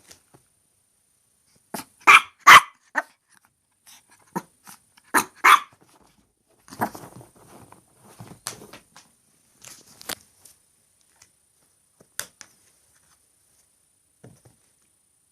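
Small long-haired chihuahua barking in short yaps: a quick run of four about two seconds in and two more around five seconds, then softer scuffling and a few sharp single clicks as it plays with a chew bone.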